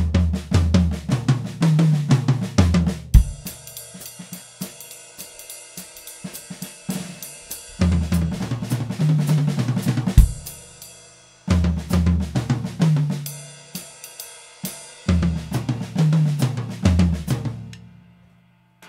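Drum kit played in repeated fills, runs of strokes stepping down in pitch around the toms, with crash cymbal and bass drum hits about three seconds in and again around ten seconds.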